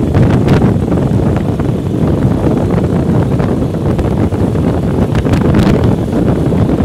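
Wind rushing and buffeting over the microphone of a phone riding on a moving motorcycle, a loud steady rumble with a few sharper gusts a little after five seconds in.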